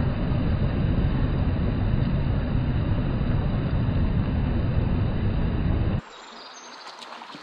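Loud, steady rush of shallow river water flowing past a microphone held right at the surface, heaviest in the low rumble. It cuts off suddenly about six seconds in, leaving a much quieter riverside background with faint insect-like ticks.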